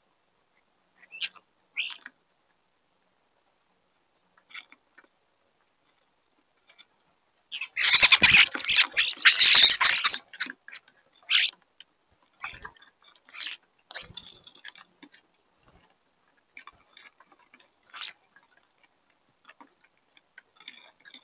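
European starlings squabbling at a suet feeder: a few short, harsh calls, then a loud burst of squawking and wing flapping lasting about three seconds from about eight seconds in, followed by scattered short calls.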